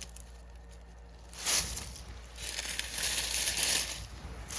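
Frost-cloth row cover rustling and crinkling as it is handled: a short burst about a second and a half in, then a longer stretch of rustling from about two and a half seconds until near the end.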